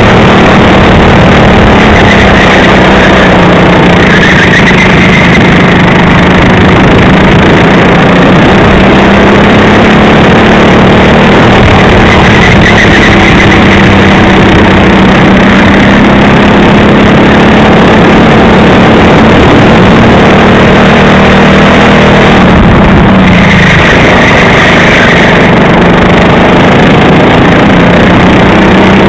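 Racing kart engine, loud and close from the kart's onboard camera, running hard with its pitch rising and falling through the corners. About two-thirds of the way through it drops briefly as the throttle is lifted, then picks up again.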